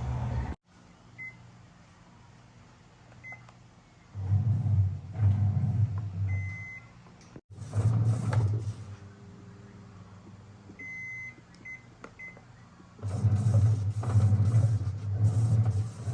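AQUA washing machine running after repair: a low motor hum that comes in short pulsing stretches, with several short electronic beeps from the control panel.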